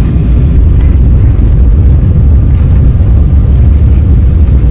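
Loud, steady, low cabin rumble inside a jet airliner as it rolls along the runway after landing.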